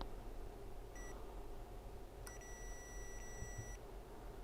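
Electronic beeper on bench test equipment: a short beep about a second in, then one long steady beep of about a second and a half.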